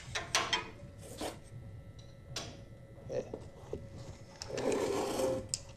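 Handling noises in a garage: a few scattered clicks and knocks, then about a second of rubbing or scraping near the end, over a faint steady hum.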